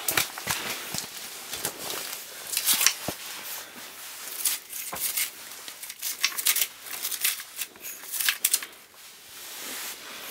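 Irregular rustling and crinkling with scattered sharp clicks, coming in short bursts every second or so, like clothing or handling noise close to the microphone.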